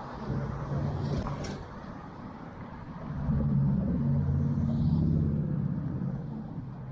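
A motor vehicle's engine hum swelling as it passes close, loudest from about three seconds in and easing off toward the end, over outdoor street noise.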